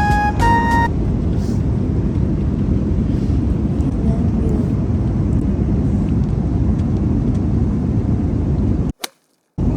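Steady low rumble of a jet airliner's cabin in flight, after a few notes of background music end about a second in. The sound cuts out for about half a second near the end.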